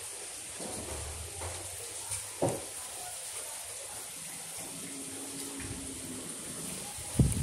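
Steady running water, with a single knock about two and a half seconds in.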